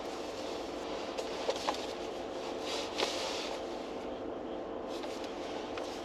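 Steady hum and hiss inside a car cabin, with a few light clicks and a soft rustle about halfway through.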